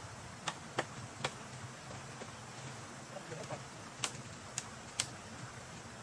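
Sharp clicks or taps at irregular intervals, about six in all: three in the first second and a half, then three more from about four seconds in.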